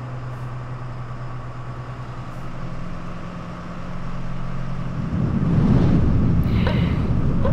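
Bus engine and road noise heard from inside the cabin: a steady low hum that swells into a louder rumble about five seconds in.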